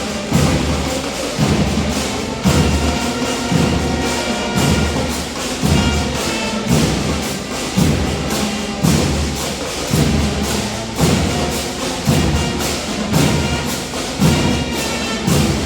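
Two bands playing together: a held melody on pitched instruments over heavy bass drum strokes about once a second.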